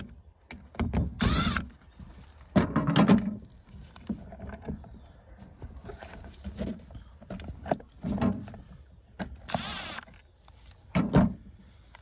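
Short bursts of a cordless screwdriver's motor whirring as it backs out the screws of the caravan door lock housing. Between the bursts come plastic knocks and scrapes as the lock unit is handled and pulled away from the door.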